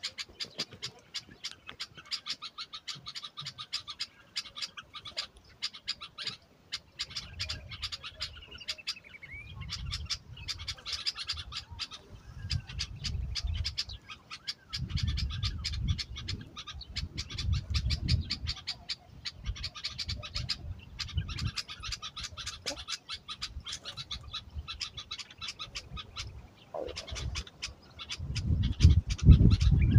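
Many small birds chirping and chattering rapidly, a dense run of short chirps with a few gliding calls. Bursts of low rumble come and go underneath, loudest near the end.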